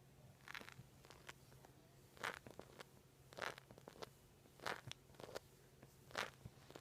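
A knee joint cracking and crunching as it bends and straightens: a series of short crackling pops about once a second, the joint crepitus the title names.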